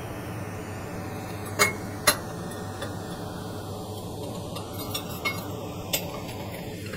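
Sharp metal clinks as a stainless pipe and the laser welding torch are set against a steel plate: two loud clinks about one and a half and two seconds in, then a few lighter ones. Under them runs the steady hum of the fiber laser welding machine.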